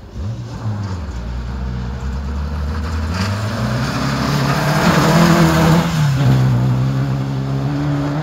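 Rally car racing past on a gravel stage: the engine revs and climbs in pitch as it approaches, gets loudest with tyre noise on the gravel about five seconds in, then drops sharply in pitch as it passes and pulls away.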